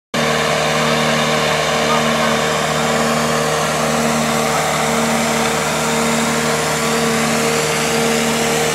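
Finn bark blower running steadily, its engine and blower holding an even pitch as they push material through the hose to fill a filter sock. The sound starts abruptly just at the beginning.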